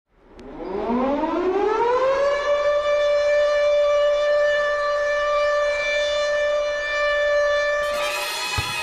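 Air-raid siren winding up, its pitch rising for about two seconds and then sounding steadily on one pitch: the Second World War air-raid warning. Near the end, orchestral music comes in.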